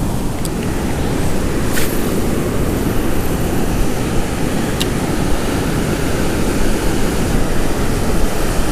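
Ocean surf washing and foaming around the shallows, a steady rush with wind rumbling on the microphone. Three sharp clicks in the first five seconds.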